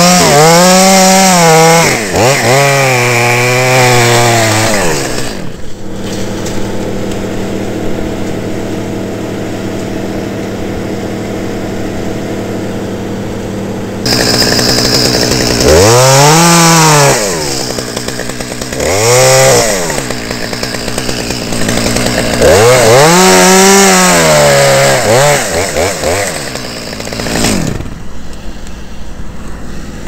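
Chainsaw revving hard in repeated bursts as it cuts ash limbs, its pitch rising and sagging under load. It drops to a steady idle for several seconds in the middle.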